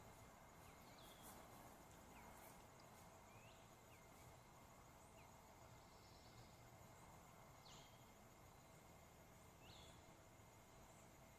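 Near silence: faint outdoor background with a handful of short, high bird chirps at irregular intervals.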